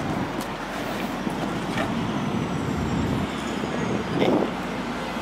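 Steady road-traffic noise from passing cars, with a short voice about four seconds in.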